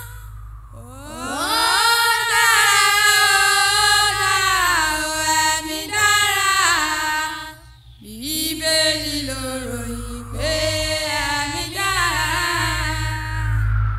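A woman singing a Yoruba gospel song in two long phrases, each opening with an upward slide, with a short break about eight seconds in. A steady low hum runs underneath.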